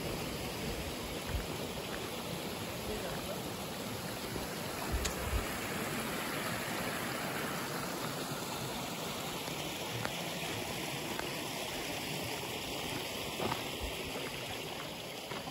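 Shallow rocky stream running steadily over stones, a continuous sound of flowing water, with a few faint clicks.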